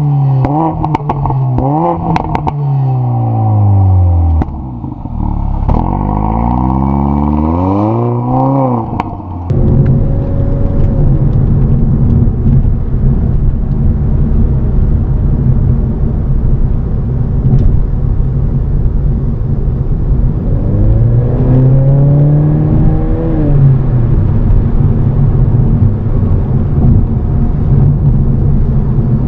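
Mercedes-Benz CLA 45 AMG's turbocharged 2.0-litre four-cylinder, heard at the tailpipe, revving several times with the car standing still, pitch rising and falling. About nine seconds in the sound changes to the engine heard from inside the moving car: a steady engine note over road noise, with one rise and fall in revs about two-thirds of the way through.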